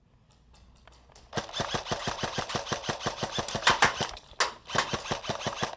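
Airsoft gun firing a long rapid string of shots, several a second, with a brief pause about four seconds in.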